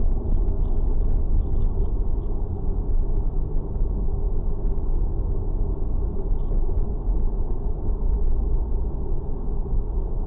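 Steady low rumble with no distinct events, like vehicle road noise.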